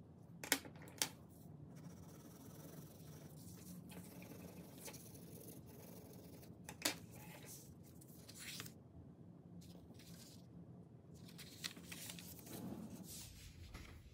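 Paper rustling and sliding as hands fold and handle a sheet of drawing paper, with a few sharp taps: two close together about half a second in, and one near the middle.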